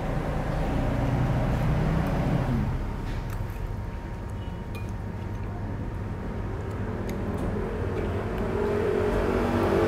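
Road traffic: motor vehicle engines running past, one fading away about two and a half seconds in and another building up toward the end.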